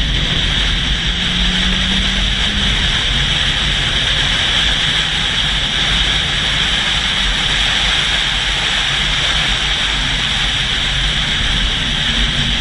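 Steady, loud rush of wind and vehicle noise, as picked up by an action camera mounted on the outside of a fast-moving vehicle, with a deep rumble underneath.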